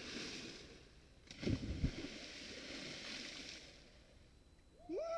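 A person splashing into a river pool off a rope swing, followed by the hiss of spray and churned water for about three seconds. A few low thumps come about a second and a half in, and a voice calls out right at the end.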